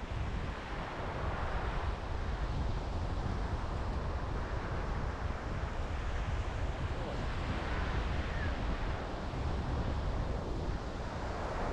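Strong wind buffeting the microphone, a steady low rumble, over the hiss of surf breaking on the beach.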